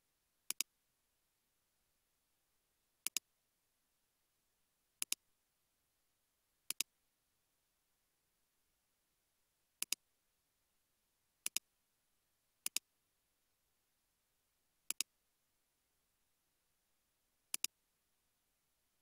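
Sharp computer-input clicks over near silence: nine times at uneven intervals, each a quick pair like a button pressed and released.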